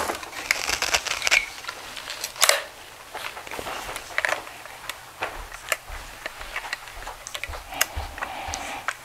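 Plastic parts of a Philips PowerPro Compact vacuum cleaner's tube and handle being handled and fitted together: scattered clicks and knocks, the loudest about two and a half seconds in.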